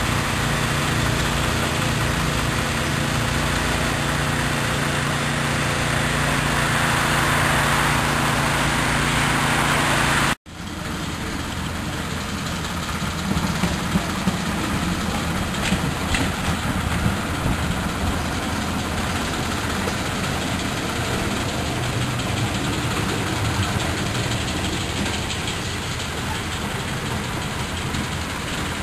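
Diesel engine of a steam-outline miniature locomotive running with a steady hum. About ten seconds in the sound cuts abruptly to another take, where the engine is rougher and more mixed with noise, with occasional clicks as the train passes.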